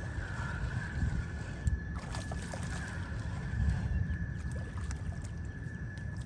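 Wind rumbling on the microphone at the edge of a fast, flooded river, with a steady thin high-pitched tone and a few light clicks about two to three seconds in.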